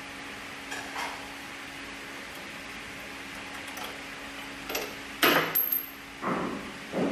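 Several metallic clanks and knocks, the loudest cluster about five seconds in, over a steady machine hum.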